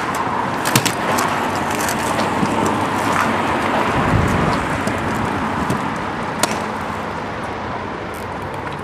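Stunt kick scooter wheels rolling over pavement, a steady rolling noise with a few sharp clacks of the deck or wheels hitting a ledge or paving joints.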